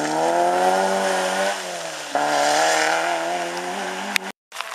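Rally car's engine at high revs as it accelerates away, the pitch climbing, then dropping and surging again about two seconds in as it changes gear. The sound cuts off abruptly near the end.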